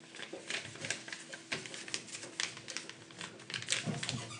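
A sheet of paper rustling and crinkling as a hand folds and presses it flat: an irregular run of crisp crackles and rustles.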